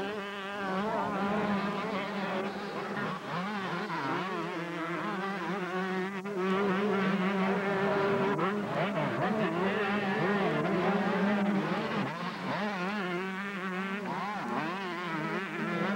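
Several 125cc two-stroke motocross bikes racing around the track, their engines revving up and down in pitch over one another, with a steady low hum underneath.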